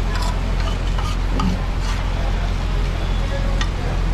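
Two metal spatulas clinking and scraping on a large flat griddle (tawa) as pieces of chicken chaap are chopped and turned in frying oil, in irregular sharp clinks. A steady low hum runs underneath.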